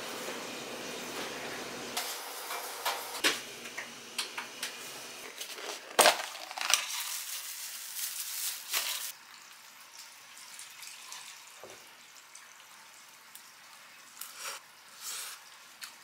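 Plastic bag crinkling and disposable takeout containers being handled and opened, with scattered clicks and knocks. It is loudest from about six to nine seconds in.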